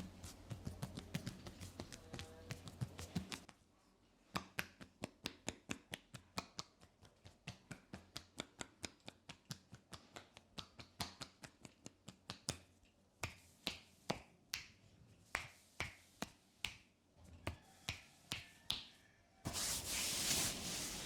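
Percussive massage: hands striking the body in quick rhythmic taps, about three to four a second, which then come further apart. A steady hiss starts near the end.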